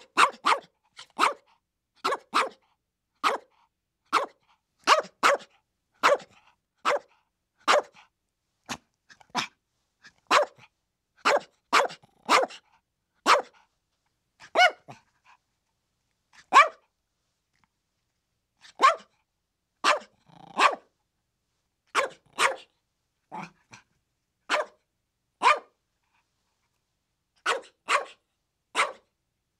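Chihuahua barking: a long run of short, separate yaps, one or two a second, some in quick pairs, broken by a couple of short pauses.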